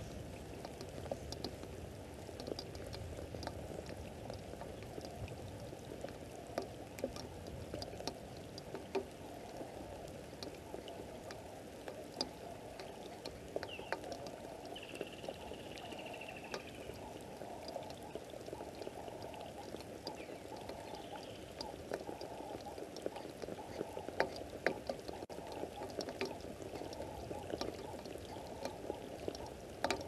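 Steady outdoor ambience of water dripping and pattering, with many small scattered ticks over a dense low background. About halfway through, a single bird gives one short whistled call that falls in pitch.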